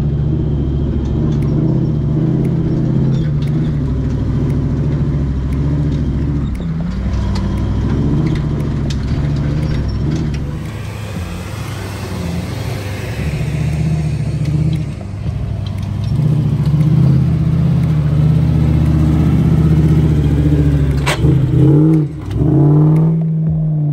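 Engines of lifted 4x4s running at crawling speed up a dirt trail, a steady low engine note. Near the end an engine revs up and down briefly.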